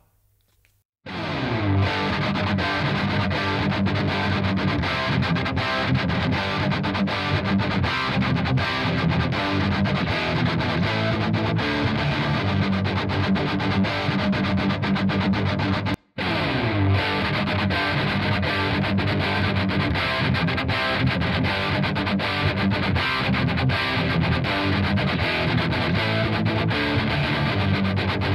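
A heavy, distorted electric guitar part, reamped through a Zilla guitar cabinet and close-miked with no EQ or compression. It plays twice: first through a Shure SM57, then, after a brief break about sixteen seconds in, the same part through a Sontronics SOLO dynamic microphone.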